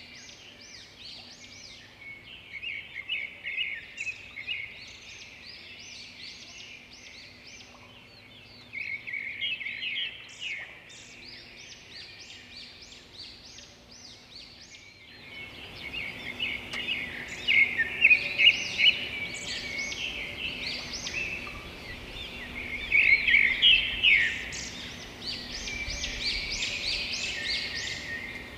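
Red-whiskered bulbul singing: runs of quick, bright whistled phrases, louder and busier from about halfway through.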